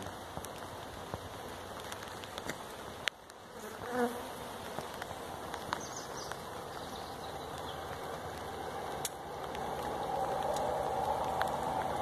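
Honeybee swarm buzzing steadily, the hum swelling louder about ten seconds in as the cluster is handled; a few sharp clicks break in along the way.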